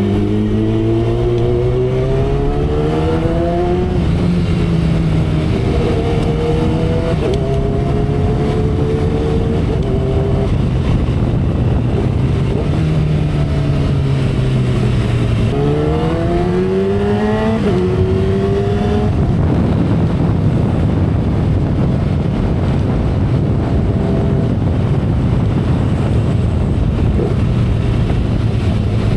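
2012 Kawasaki ZX-10R's inline-four engine accelerating hard in two pulls, its note rising and then dropping at each upshift. Between and after the pulls, heavy wind rush at expressway speed covers a steady, quieter engine note.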